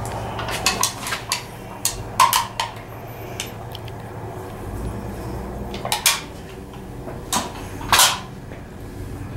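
Scattered metallic clinks and knocks as the sheet-metal air cleaner and carburetor on top of a Chevrolet 235 inline-six are handled, with the engine not yet running. A steady low hum lies beneath.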